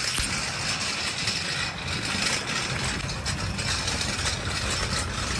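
Metal shopping cart rolling over parking-lot asphalt, its wheels and wire basket rattling steadily.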